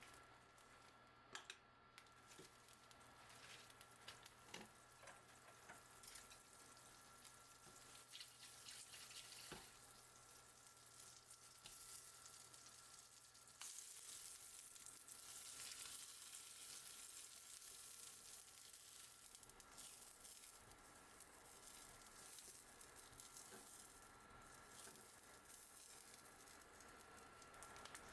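Faint sizzling of food frying in a pan, with a few light clicks; the sizzle grows louder about halfway through.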